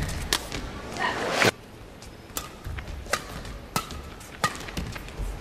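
Badminton rally: rackets striking the shuttlecock in sharp single hits about once a second, with shoes squeaking on the court floor between hits.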